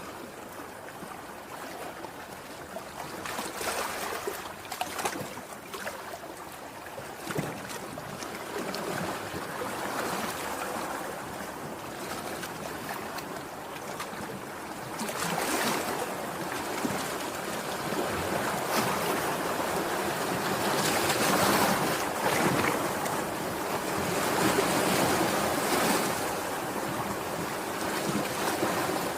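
Sea waves breaking and washing on the shore, a steady rush of surf that swells louder with bigger waves about halfway through and again near the end.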